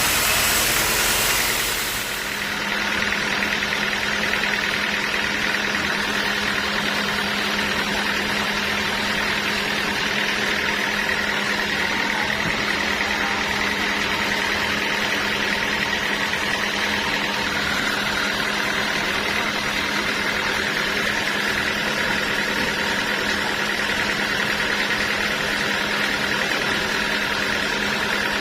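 Sawmill engine running steadily at idle after a cut. A loud, hissing sawing noise stops about two seconds in, leaving the steady drone of the engine.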